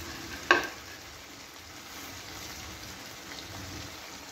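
Chicken and spiced masala frying in oil in a pot, a steady crackling sizzle, with one sharp knock about half a second in.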